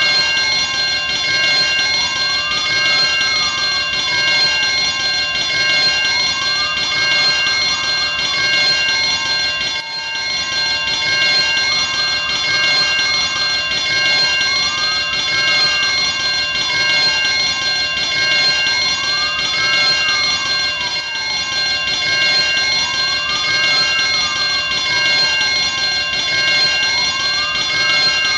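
Electric fire alarm bell ringing continuously with a bright, metallic, unbroken clang. Underneath it, a fainter tone rises and falls in a slow wail about every four seconds.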